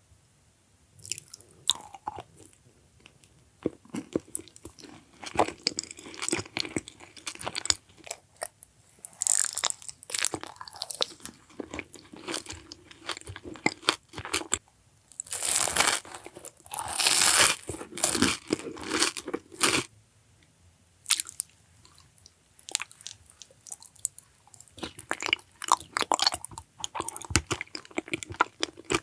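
Crunching bites and chewing of crisp food in a mukbang, in bursts of sharp crackles with a few short pauses between mouthfuls.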